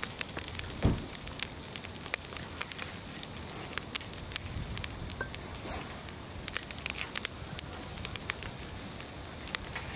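Fire crackling with irregular sharp pops, and a dull thump about a second in.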